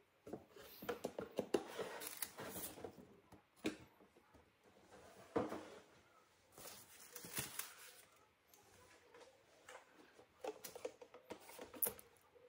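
Irregular rustling and light knocks from handling the unboxed robot vacuum and its cardboard packaging on a desk, in several short clusters.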